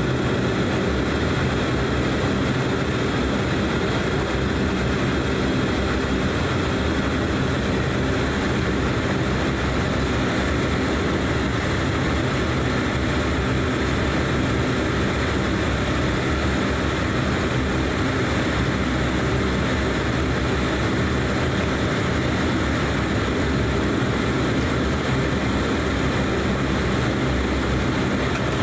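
A DHC8-Q400 turboprop's Pratt & Whitney PW150A engines and six-blade propellers heard from inside the cabin, running at steady taxi power as the airliner rolls along the runway. The drone holds even throughout, with no run-up to takeoff power.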